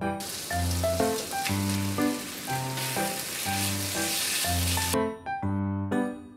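Chili-marinated chicken and sliced onion sizzling in a frying pan while being stirred with a wooden spatula, over light background music. The sizzling stops abruptly about five seconds in, leaving only the music.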